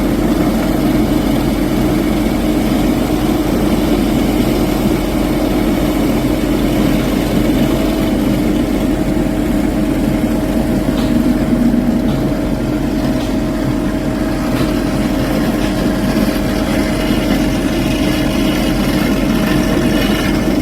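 Heavy machinery engine running steadily with an even hum, no breaks or changes in pace.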